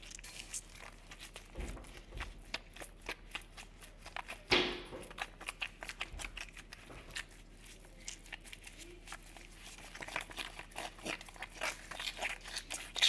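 A homemade squishy, a tied-off glove filled with lotion, shampoo, shaving cream and cotton stuffing, being squeezed and kneaded over and over, giving a stream of short crackly, squishy clicks, with a louder squish about four seconds in.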